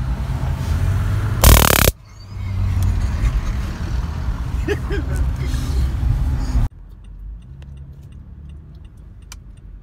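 Road and engine rumble inside a moving car's cabin, with a loud burst of noise on the microphone about one and a half seconds in. The sound changes abruptly twice, and after the second change the rumble is quieter with light, evenly spaced ticking.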